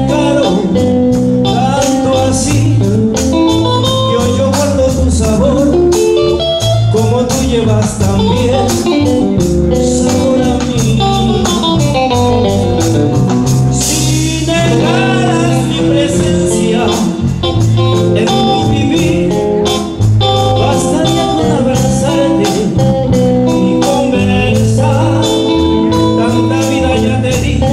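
Live band music: a man singing over electric guitar, bass guitar and a steady beat.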